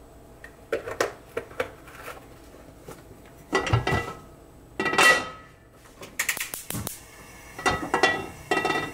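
Metal cookware and utensils clinking and clattering in a handful of separate bursts, a few of the knocks ringing briefly, as a frying pan is handled and set up with oil on the stove.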